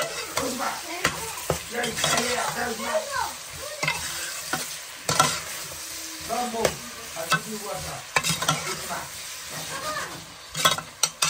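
Metal ladle stirring chopped onions and cumin seeds frying in an aluminium pot: a steady sizzle with irregular clicks and scrapes of the ladle against the pot.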